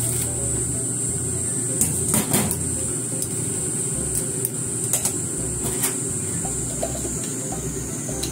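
Pot of boiling water bubbling steadily as sliced bitter melon blanches in it, with a few light clatters of the plastic colander and utensils against the pot and sink.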